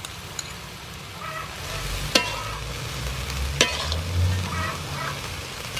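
Metal spatula stirring razor clams and bean sprouts in a steel wok, the shells clattering over a sizzle. The stirring starts about a second and a half in, with two sharp clinks of the spatula against the wok.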